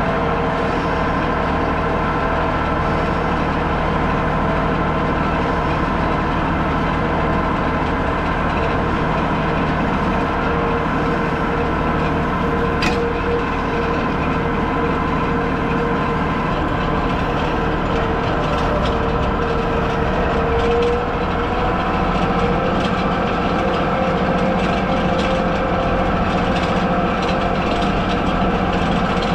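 Tractor engine running steadily while skidding a log. Its pitch rises slightly about two-thirds of the way through, and there is a brief click near the middle.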